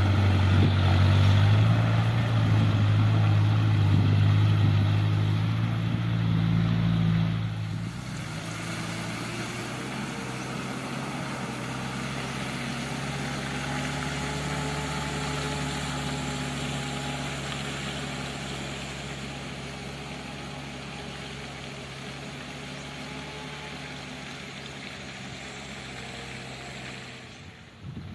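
Heavy construction vehicle's engine running steadily, loud for about the first seven seconds, then dropping in level and fading slowly as it continues.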